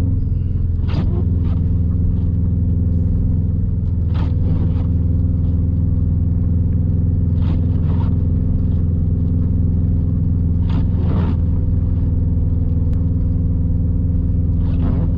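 Subaru WRX STI's turbocharged flat-four and road noise heard from inside the cabin as a steady low drone while driving on a rough, snowy road. Every few seconds there is a short knock or scrape, mostly in pairs, as the car goes over bumps in the unkept road surface.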